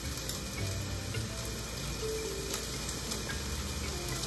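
Rice noodles and Pad Thai sauce sizzling steadily in a stainless steel wok while metal tongs toss and mix them.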